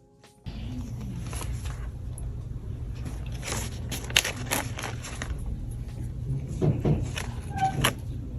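Hand-handling of unboxing packaging: scattered crackles, clicks and scrapes over a steady low hum, starting about half a second in.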